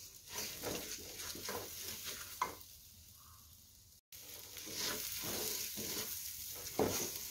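A wooden spatula stirs and scrapes rice frying in oil in an aluminium pot, at about two strokes a second, with a frying sizzle underneath. The stirring pauses a little past the middle, then resumes.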